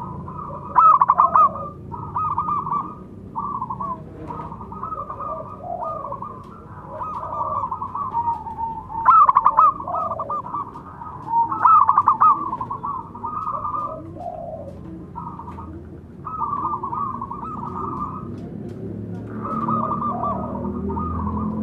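Zebra doves (perkutut) cooing over and over, more than one bird calling back and forth, with fast trilling coo phrases overlapping a lower set of calls. The loudest phrases come about one, nine and twelve seconds in.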